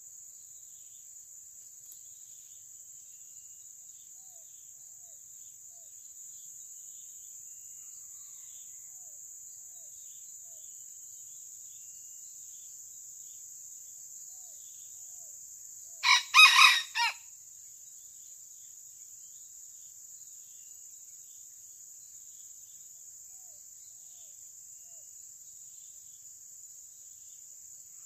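Red junglefowl rooster giving one short crow, about a second long and broken into a few quick pulses, about halfway through. A steady high insect drone runs beneath it.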